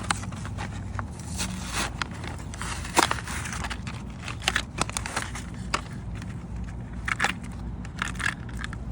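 Cardboard toy box and its packaging being handled and opened by hand: irregular crackling, scraping and sharp snaps, the loudest snap about three seconds in.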